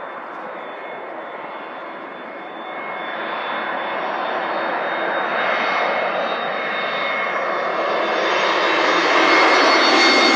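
Jet airliner's engines: a rushing noise with a steady high whine, growing steadily louder as the aircraft comes closer.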